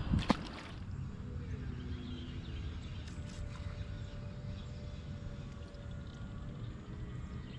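Steady low rumble of wind and water around a bass boat, with one sharp knock just after the start.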